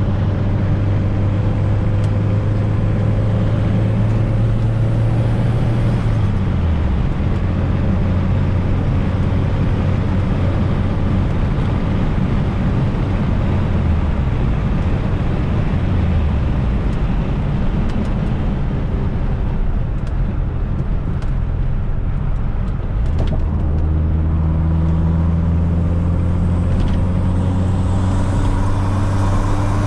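Fiat Coupe 16V Turbo's turbocharged four-cylinder engine under way, with road noise. Its pitch holds steady, drops about six seconds in and again around sixteen seconds, then climbs from about twenty-three seconds as the car speeds up.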